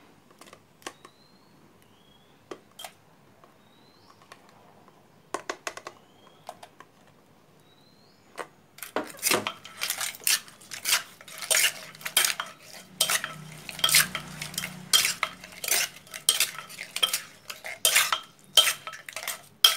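A few scattered clicks, then from about nine seconds in a fast, busy run of clinks, knocks and scrapes: a metal spoon working in a clay mortar, tossing and mixing the som tam papaya salad with pickled crab.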